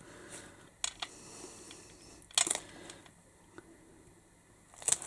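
A few light clicks and taps from crafting materials being handled on a tabletop: card and a glue bottle, with a louder cluster about halfway through.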